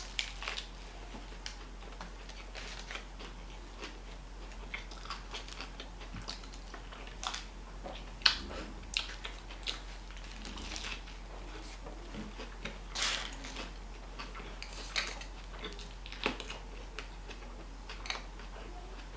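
A person chewing and biting food close to the microphone: irregular short mouth clicks, a few of them louder.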